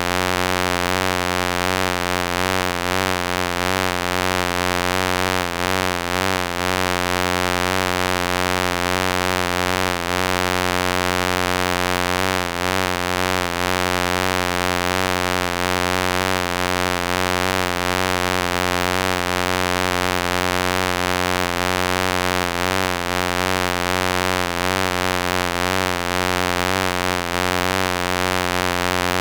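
Wasp buzzing in flight: a continuous low buzz whose pitch wavers slightly.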